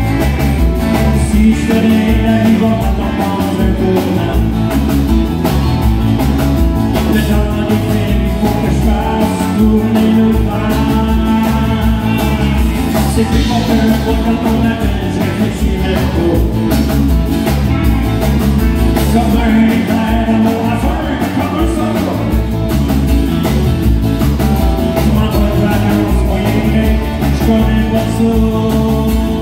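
Live country-rock band playing a song: electric guitars, bass and drums behind a lead singer with an acoustic guitar, loud and steady.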